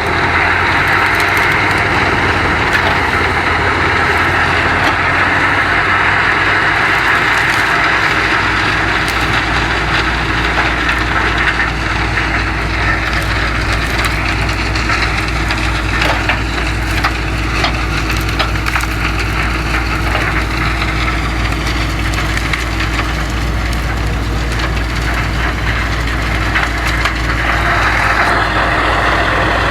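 Wood chipper running and chipping branches: a steady engine drone with a dense crackle of splintering wood through most of the middle.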